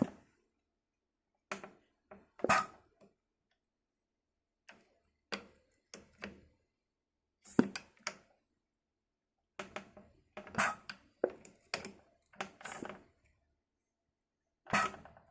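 Leyland Atlantean gear shifter under air pressure being moved through its gates: about fourteen short metallic clicks and clunks, some in quick pairs, with pauses between.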